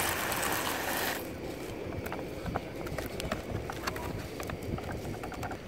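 Dry pasta poured from a plastic sachet into a pot of hot water, a rushing patter for about the first second. After that come light crinkles and small taps as the packet is shaken out.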